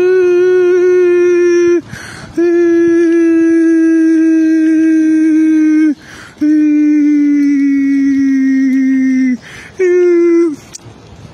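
A man's voice holding long, steady, high-pitched notes with no words, each lasting three to four seconds and sinking slightly in pitch. A quick noisy breath comes between the notes. The last note is short and breaks off near the end.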